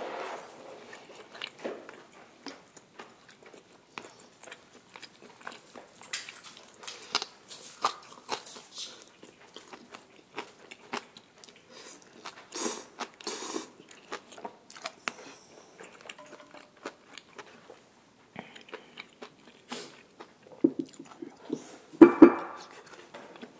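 A person chewing grilled Korean beef (hanwoo), with irregular wet mouth clicks and smacks. A short louder sound comes near the end.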